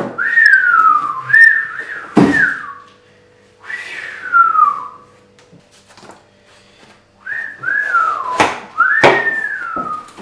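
A man whistling a string of sliding notes, most falling in pitch, as an impressed whistle. A few sharp knocks come in between, from the cardboard laptop box being handled.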